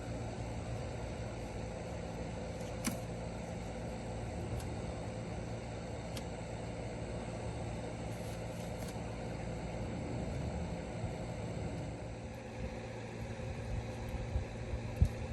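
A steady mechanical hum from a running machine, even throughout, with a faint click about three seconds in.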